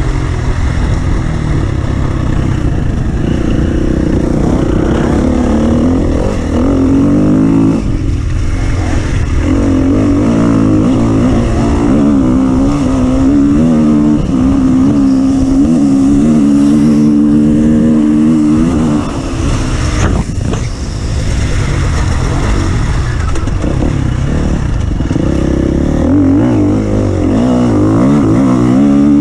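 An off-road vehicle's engine runs hard under load, its revs rising and falling over rough ground, with a brief dip about two-thirds of the way through.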